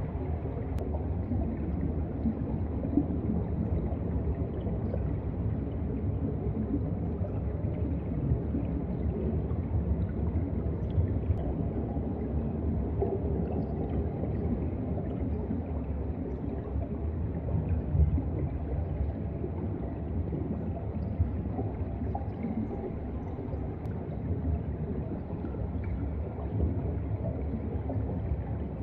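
Underwater ambient sound from a seabed camera's microphone: a steady low rumble and wash of moving seawater, with a few faint scattered clicks.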